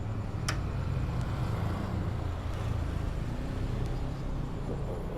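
A sharp metallic click about half a second in and a few fainter ticks later, from hand tools working a tight bolt on a car's A/C compressor, over a steady low rumble.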